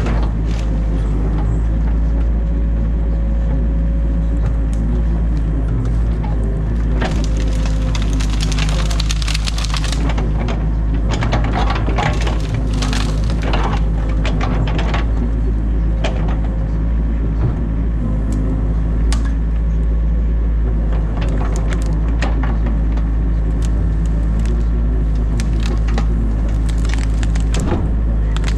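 Excavator engine running steadily, heard from inside the cab, with branches of a beaver dam cracking and snapping as the bucket breaks them out. The cracking comes in dense runs about a quarter of the way in and again near the middle, with scattered snaps after.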